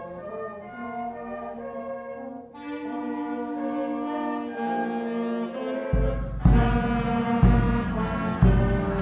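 Grade 8 concert band of brass and woodwinds playing held chords. About six seconds in, the low brass and a bass drum come in, the drum striking about once a second.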